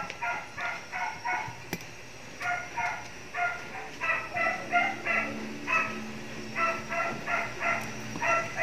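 A dog barking in quick runs of short, high-pitched yaps, about four a second, broken by brief pauses.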